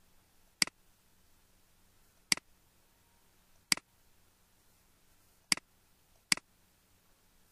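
Computer mouse clicking five times at uneven intervals, each a sharp tick followed closely by a fainter one, over a faint steady hum.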